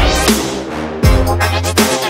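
Electronic background music with a heavy bass and a steady beat; a deep bass hit lands about a second in.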